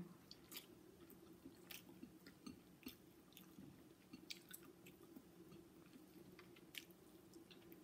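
Faint chewing of people eating chicken adobo and rice by hand: soft, irregular mouth clicks scattered over near silence, with a low steady hum beneath.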